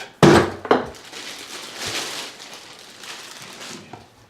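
Packaging being handled: two sharp knocks at the start, then about three seconds of rustling and crinkling.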